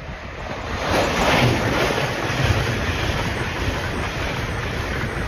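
Hitachi Azuma high-speed train passing along the track: a steady rush of wheel and air noise, loudest about a second in, with wind buffeting the microphone.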